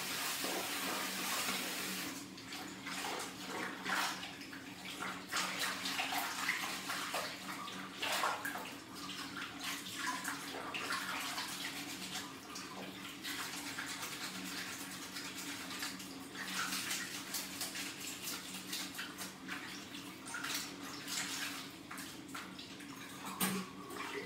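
Tap running into a filled bathroom sink for the first couple of seconds, then water sloshing and splashing as a cloth is swished, squeezed and wrung out in the basin.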